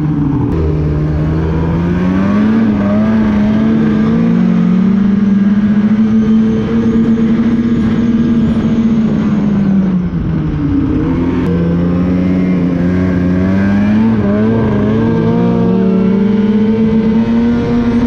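Polaris Patriot Boost turbocharged two-stroke snowmobile engine through an RPM stainless aftermarket muffler, running under way. The engine note drops off right at the start and again about halfway through, then climbs back up and holds steady.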